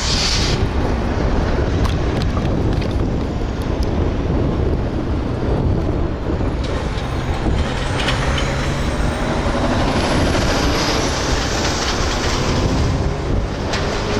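Diesel freight locomotive running with a steady low engine rumble, mixed with passing road traffic; a short burst of air hiss right at the start.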